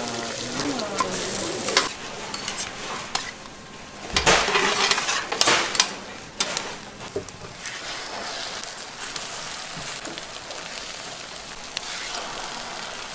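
Food sizzling as it fries in oil, with clinks and scrapes of a metal utensil against the pan, loudest about four to six seconds in.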